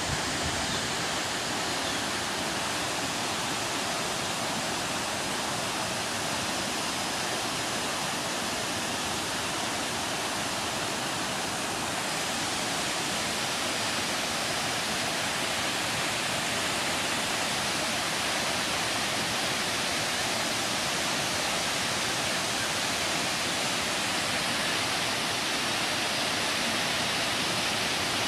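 Steady rushing of flowing water, an even hiss that does not change.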